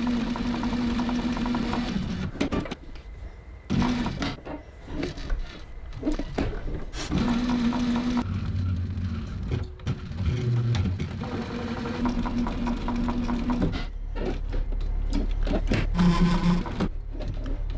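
TechSew cylinder-arm industrial sewing machine stitching through leather strap layers, its motor hum starting and stopping several times as the strap is fed and repositioned by hand.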